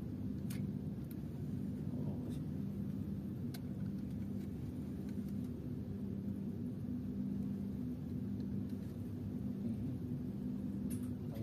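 A boat engine running steadily with a low hum, with a few faint clicks.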